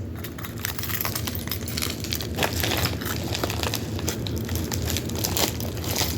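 A key scraping and cutting into a parcel's packing tape, with the packaging crinkling and rustling in quick, irregular scratches.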